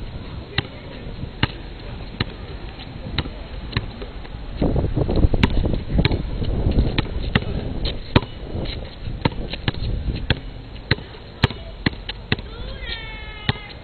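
A basketball dribbled on an asphalt court, sharp bounces coming about one to two a second, with a louder rough noise under them around the middle. A brief high-pitched sound near the end.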